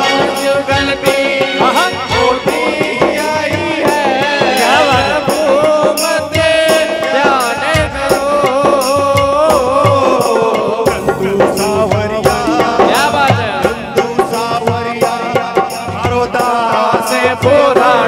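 Live Hindu devotional bhajan (kirtan) music: voices and a keyboard carry a wavering melody, with a dholak and hand percussion keeping a steady beat.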